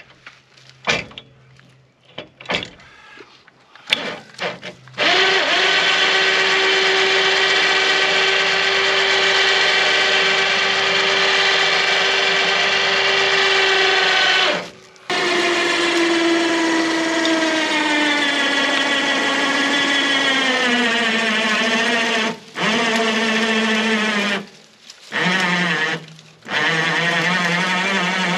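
Electric winch mounted in a pickup's hitch receiver, worked by its corded remote, with a few clicks and knocks before the motor starts. It runs with a steady whine for about ten seconds, stops briefly, then runs again with a whine that drops steadily in pitch as the cable takes up the load. Near the end it runs in several short starts and stops.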